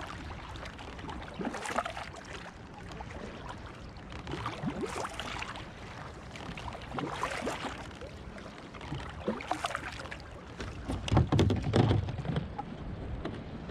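Kayak paddle blades dipping and splashing in lake water, about one stroke every two and a half seconds, over steady lapping. Near the end there are several louder bumps and knocks.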